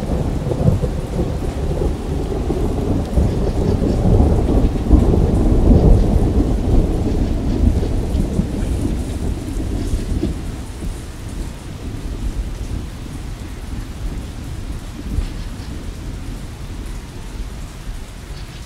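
Steady rain with a long rolling rumble of thunder that builds to its loudest about five or six seconds in, then dies away and leaves the rain falling.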